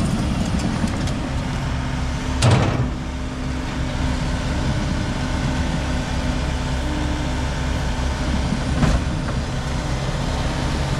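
A motor vehicle's engine running steadily, with two sharp knocks, one about two and a half seconds in and another about nine seconds in.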